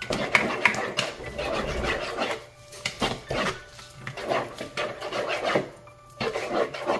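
Spoon or spatula stirring grated carrot into a wet cake batter, scraping against the mixing bowl in several rough spells with short pauses between.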